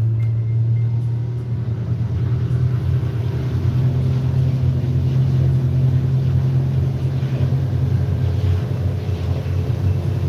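Fast prototype motorboat's engine running hard at high speed, a steady low drone.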